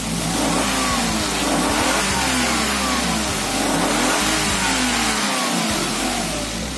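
Perodua Axia's three-cylinder 1KR petrol engine revved up and down several times, in a test run on freshly fitted spark plugs. The old plugs had worn electrodes and too wide a gap, which the mechanic blames for its loss of power and sputtering.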